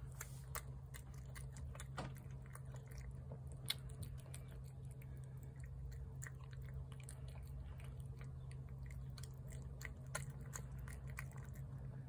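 A cat eating wet cat food from a plate: small, irregular wet chewing and lapping clicks, over a steady low hum.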